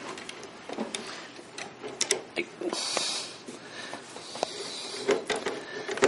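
Hand screwdriver starting new, bigger wood screws into a loose door hinge: small clicks and scrapes, with a short scraping hiss about three seconds in.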